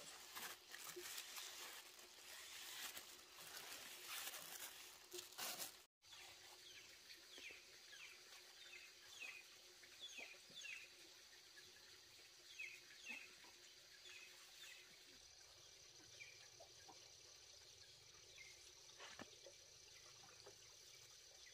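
A cloth rubbed against the top of a wooden stump stool, close and rough, for the first few seconds. After a sudden cut, quiet outdoor ambience follows, with a run of short falling bird chirps and then a steady high insect buzz.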